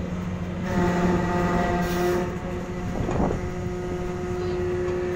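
Ship's engines running with a steady drone and several held tones, slightly louder from about a second in, with a brief rush of noise around three seconds in.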